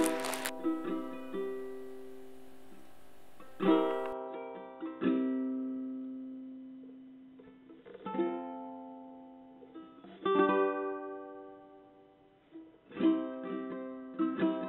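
Background music: sparse plucked notes and chords on an acoustic string instrument, each ringing out and fading before the next.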